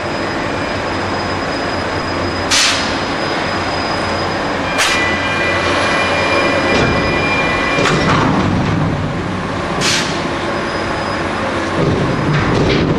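Heavy crane machinery at a container terminal: a steady mechanical din with a sharp metallic clank every two to three seconds, five in all, some followed by a ringing metal squeal.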